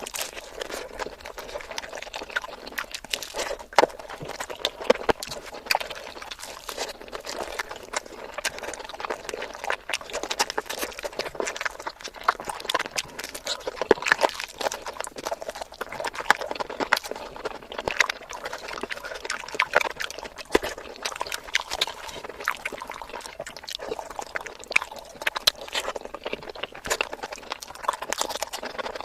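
Close-miked eating sounds: wet chewing and lip smacks of a person eating, a dense run of quick, irregular sticky clicks.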